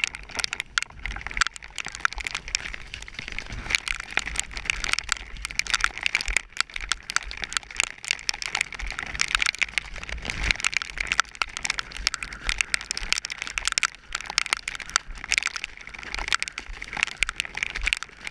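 Heavy rain hitting a helmet-mounted GoPro camera's housing close to the microphone: a steady, thick crackle of drops.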